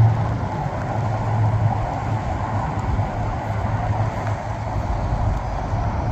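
Steady rumble of highway traffic, with low wind rumble on the microphone growing near the end.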